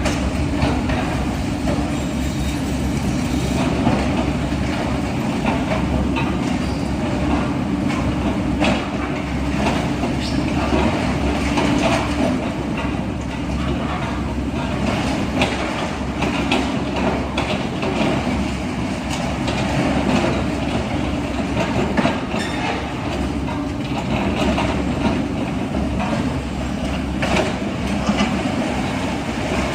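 Heavy machinery running: a steady low rumble with frequent metallic clanks and knocks throughout, like tracked-machine clatter.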